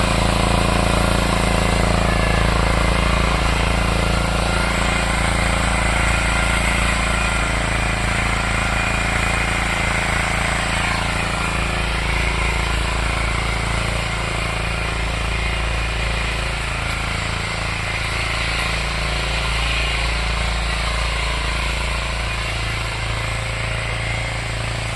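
Engine of a ploughing machine running steadily under load, with a dense rattling clatter that holds at an even level.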